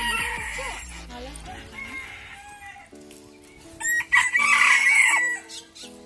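Bantam rooster crowing: a shorter call near the start, then one loud crow about four seconds in lasting well over a second.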